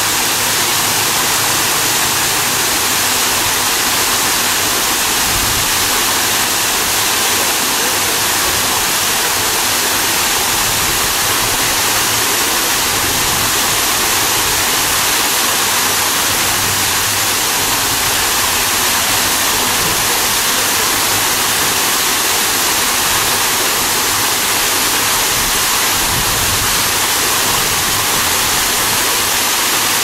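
Waterfall cascading over rocks into a pool: a steady, even rush of falling water with a bright, hissing edge.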